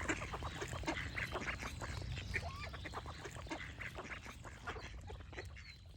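A flock of ducks quacking, many short calls overlapping over a low background rumble, growing fainter toward the end.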